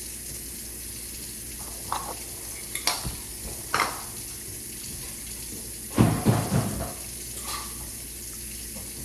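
Scattered clinks and clatters of dishes and utensils being handled, loudest in a cluster about six seconds in, over a steady hiss.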